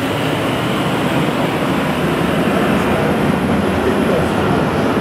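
Steady, even hubbub of a large, busy exhibition hall. No single event stands out.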